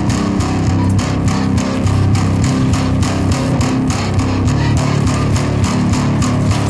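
Rock soundtrack music: distorted electric guitar and bass over a fast, steady drum beat.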